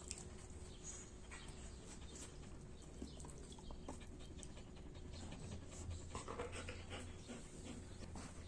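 Siberian husky panting softly, with a few small wet clicks as it licks its lips.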